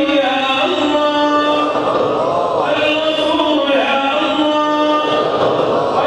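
Male voice chanting an Islamic supplication (dua) in long, wavering held notes.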